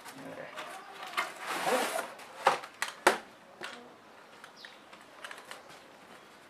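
Cardboard box being handled and a tripod in a black fabric carry bag slid out of it: rustling and scraping of cardboard and bag, with two sharp knocks about two and a half and three seconds in, then softer rustling of the bag.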